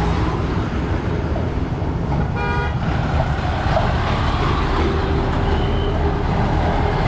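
Low, steady diesel engine rumble of a heavy army truck pulling past, with one short vehicle horn toot about two and a half seconds in.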